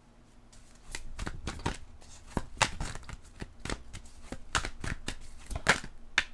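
Hands brushing and tapping on tarot cards laid out on a cloth mat: after about a second of quiet, an irregular run of light taps and swishes.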